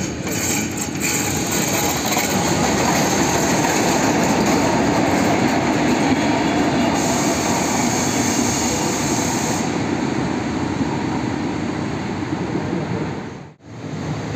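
Passenger train of Intercity coaches hauled by an SU42 diesel locomotive rolling into the station, a steady rumble of wheels on the rails with some clickety-clack. The sound cuts out briefly near the end, then similar train noise resumes.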